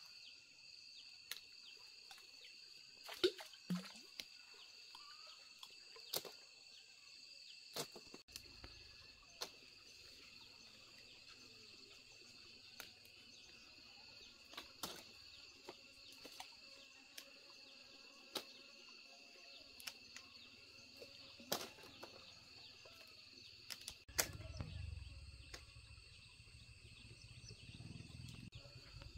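A steady, high-pitched insect chorus in several layered tones, broken by scattered sharp snaps and clicks as fig clusters are plucked off the branches. A low rumble of handling comes in near the end.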